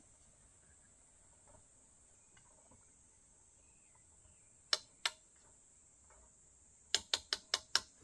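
Faint, steady high-pitched insect chirring. A few sharp clicks cut through it: two a little before the middle, then a quick run of about six, roughly six a second, near the end.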